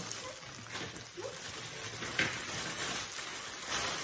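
Thin plastic bags crinkling and rustling as they are handled and torn open, with a louder crackle about two seconds in and another near the end.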